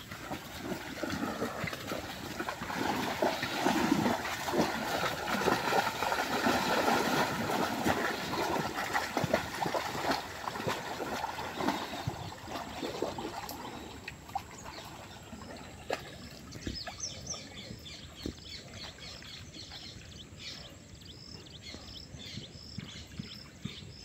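Water pouring and trickling, a splashing hiss that is loudest in the first half and fades after about fourteen seconds. Later comes a regular run of short, high chirps.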